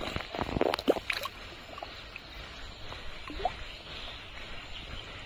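Shallow muddy water sloshing and splashing, with a few sharp splashes in the first second or so, then a quieter steady wash of water.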